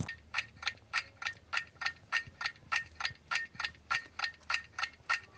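Ticking-clock countdown sound effect: an even run of sharp ticks, about four a second, marking the time allowed to answer.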